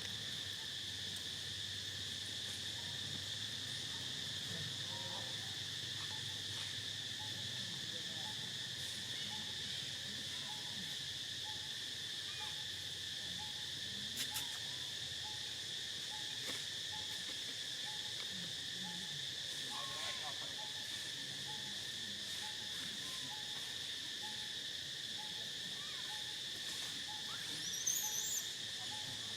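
Steady, high-pitched drone of an insect chorus. A faint short note repeats about once a second under it, and a brief high chirp comes near the end.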